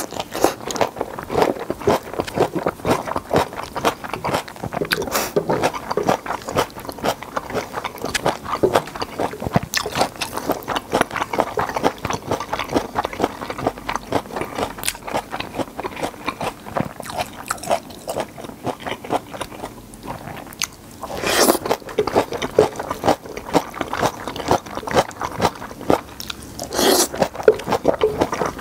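Close-miked chewing of japchae noodles, with many small wet clicks and smacks of the mouth, and two louder slurps of noodles, one about two-thirds through and one near the end.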